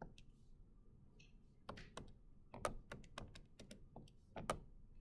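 A faint, quick run of about a dozen sharp key clicks, beginning a bit under two seconds in and stopping about half a second before the end, as the numbers of a calculation are keyed in.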